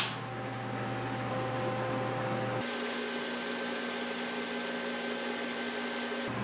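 Steady workshop machine hum with a constant low tone. About two and a half seconds in, the hum switches to a slightly higher tone, then switches back near the end.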